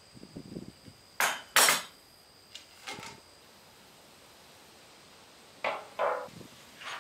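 Metal varnish pail being opened: a light rattle of the locking ring being worked loose, then two sharp metallic clacks about a second in as the ring and lid come free. Near the end come two more clanks as the lid and ring are set down on the wooden floor.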